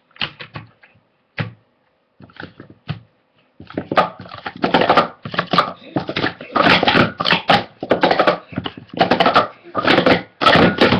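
Plastic sport-stacking cups being rapidly stacked up into pyramids and collapsed back down on a mat: a few scattered clicks for the first few seconds, then a dense, fast run of plastic cup clacks from about three and a half seconds on.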